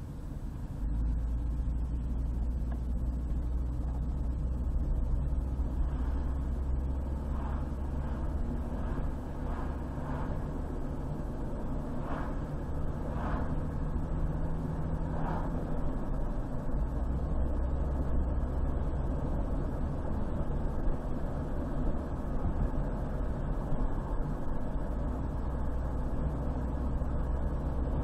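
Car driving on a highway: a steady low rumble of engine and tyre noise, with a few faint brief higher sounds about a third of the way in.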